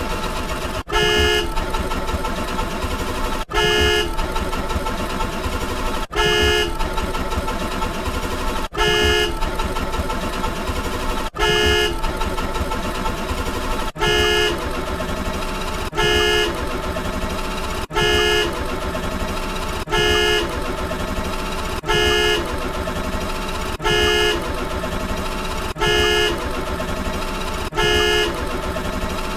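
A short, loud horn-like honk repeating thirteen times, at first about every two and a half seconds and later about every two seconds. Under it runs a continuous dense droning layer of many steady tones, which cuts off abruptly at the end.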